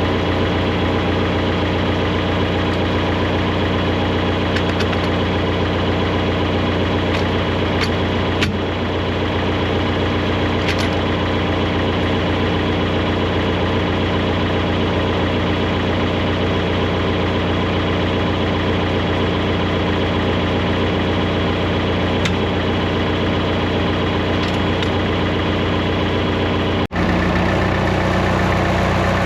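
Farm machine engine running steadily at constant speed. A sudden brief break comes near the end, after which the engine note changes slightly.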